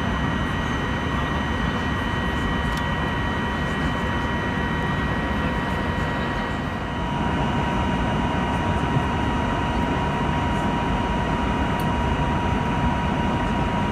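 Steady cabin noise inside an Airbus A321 in flight: a constant rush of air and engine noise with a few faint steady high tones running through it.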